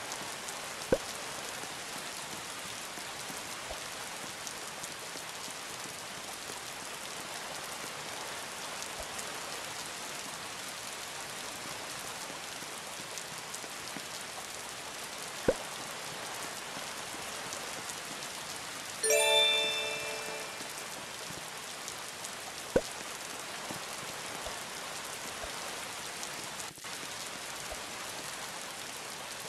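Steady rain hissing evenly, with three sharp single taps like drops striking something. About two-thirds of the way through, a single bell-like chime rings and fades over a second or so.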